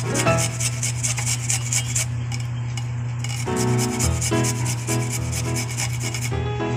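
A garlic clove grated on a small stainless steel hand grater over a ceramic plate: a quick run of scraping, rasping strokes as the clove is rubbed back and forth across the teeth.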